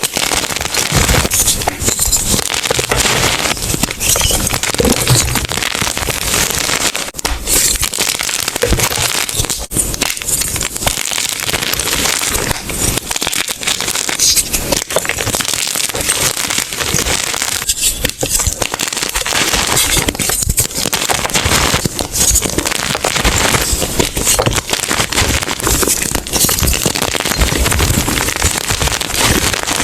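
Blocks of gym chalk being crushed, a loud, dense, continuous crackling crunch of many small snaps.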